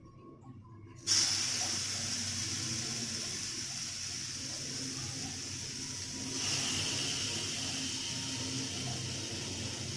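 Marinated boal (wallago catfish) steaks sizzling in a hot wok: a steady hiss starts suddenly as the first piece goes in, about a second in, and grows louder about six seconds in as a second piece is added.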